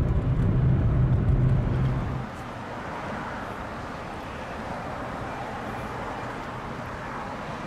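Cabin noise of a 1990 Honda Accord on the move: the four-cylinder engine and road drone with a steady low hum. About two seconds in it cuts to quieter, even outdoor street ambience.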